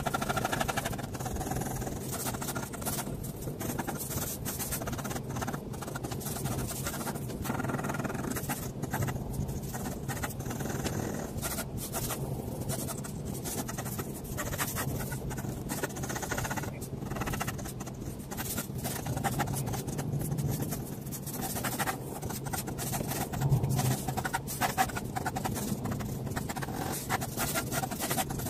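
Pen nib scratching across paper in many quick, irregular strokes while sketching.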